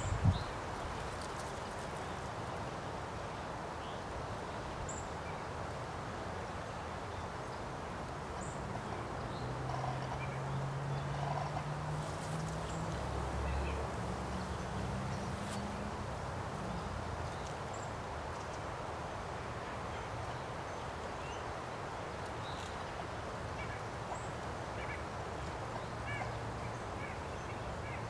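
Outdoor ambience: a steady background hiss with scattered faint bird chirps, and a low hum that rises slightly in pitch for several seconds near the middle. A short knock sounds right at the start.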